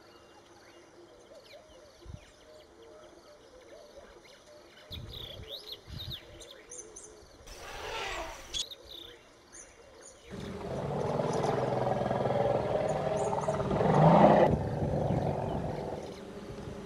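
Birds chirp, and about eight seconds in there is a short breathy blast. From about ten seconds in an African elephant gives a low, rough rumbling roar lasting about four seconds, loudest near its end, which then drops to a softer rumble.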